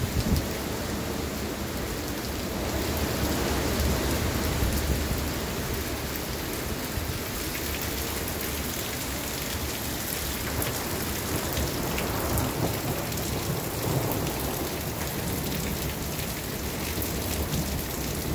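Violent storm winds gusting through trees with heavy rain, a steady rushing noise that swells a few seconds in and again about twelve seconds in.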